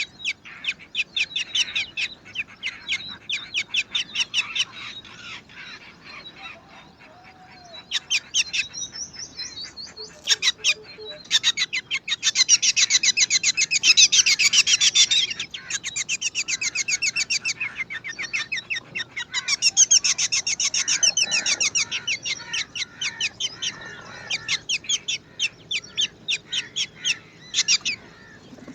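Black drongo nestlings begging with long runs of rapid, high chirps, several a second. The chirping grows loudest in two spells around the middle, the sign of hungry chicks calling for food.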